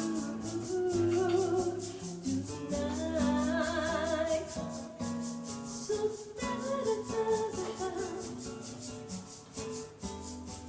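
Live acoustic band music: a shaker keeps a steady, even rhythm over plucked guitar chords, with a wavering melody line on top.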